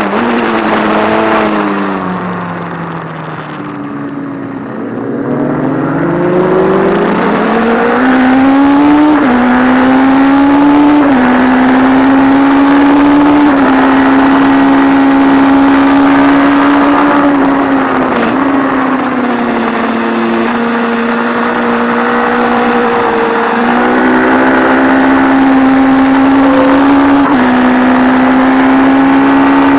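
1170 cc P&M Kawasaki air-cooled inline-four racing engine heard from on board at full race pace. Its note falls as the bike slows for a corner, then climbs steeply as it accelerates out and holds high revs with small steps at the gear changes. It dips briefly near the middle, then rises again, under a steady rush of wind noise.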